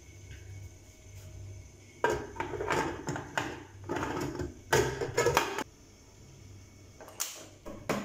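Aluminium lid clattering and scraping as it is set on a large aluminium cooking pot, a quick run of metallic clanks, followed near the end by a couple of sharp knocks as the pot is put down on the stove.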